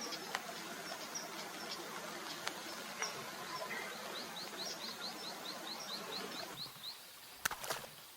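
Outdoor ambience with a bird calling: scattered short chirps, then a quick run of about ten rising high chirps over some three seconds. A couple of sharp clicks near the end.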